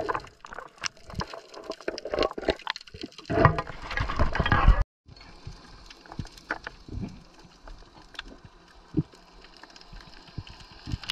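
Water sloshing and splashing around an underwater camera just below the surface, loudest just before a sudden break about five seconds in. After the break comes quieter underwater sound with scattered clicks and one sharp thump about nine seconds in.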